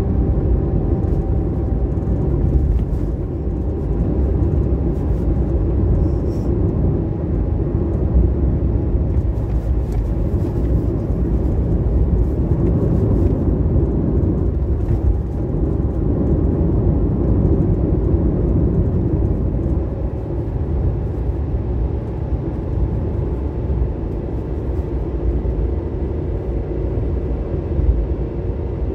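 A car driving along at a steady pace: continuous engine and road noise with no clear changes.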